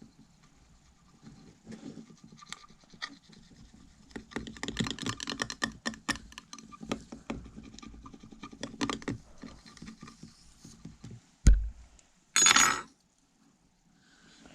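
A hard scratch-test pick scraping over and over across a flip phone's screen, pressed hard, in quick rasping strokes. Near the end comes one sharp knock, the loudest sound, followed by a short loud rasp.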